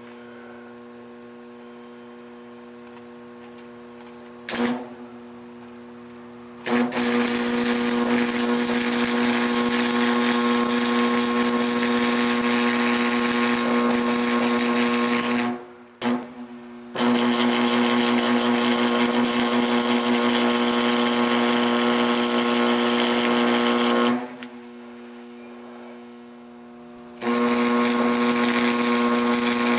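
Marquette 100 AC arc welder, set to its lowest amperage, humming steadily, then the stick electrode's arc crackling and sizzling in three long spells, with a short strike a few seconds in and only the welder's hum in the gaps between.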